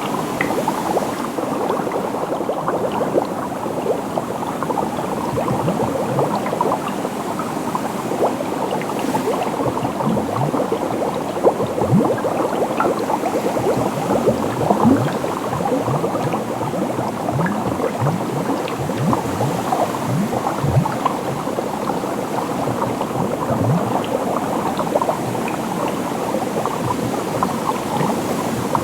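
Water bubbling and gurgling steadily: a dense run of small bubble sounds, each rising briefly in pitch.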